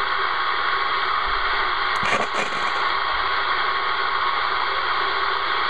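Realistic TRC-465 CB radio receiving with no signal on channel 38: a steady band hiss and static from its speaker, with a brief crackle about two seconds in.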